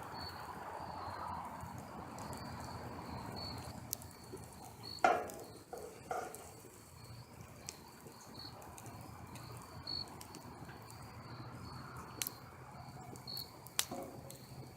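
Crickets chirping steadily in a continuous pulsing high trill, with a campfire crackling and popping now and then. A louder brief sound about five seconds in.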